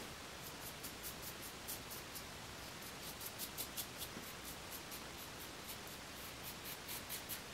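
Double-edge safety razor scraping through lather and stubble in short, quick strokes, a few a second, on a cross-grain pass.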